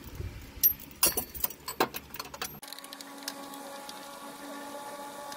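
Metal clinks and knocks of a three-jaw puller and tools being handled and fitted to the A/C compressor clutch pulley. About two and a half seconds in, the sound changes abruptly to a steady hum with several held tones.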